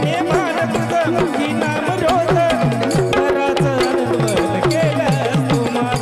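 Instrumental gondhal folk music: a hand drum plays a steady rhythm of about four strokes a second, its bass strokes dropping in pitch, under a melody that slides between notes.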